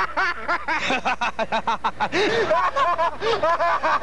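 A man laughing loudly and hard in a rapid run of 'ha-ha' bursts, several a second, without a break.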